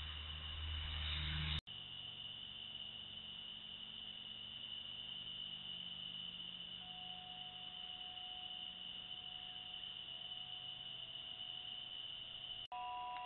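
A steady, high-pitched chorus of night insects, picked up by a trail camera's microphone. A low hum under it in the first second and a half cuts off suddenly, and the sound drops out for an instant near the end.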